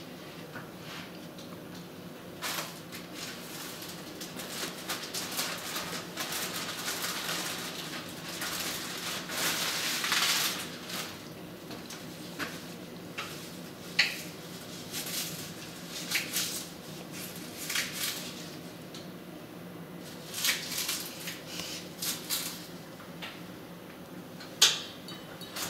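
Cat lapping water from inside a plastic tumbler: irregular wet lapping and splashing with small clicks of tongue and face against the cup, and a few sharper knocks.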